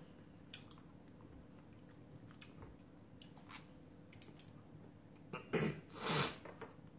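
Eating ramen: quiet chewing with scattered light clicks of chopsticks and a spoon against the bowl, then two short louder noisy sounds about five and a half seconds in.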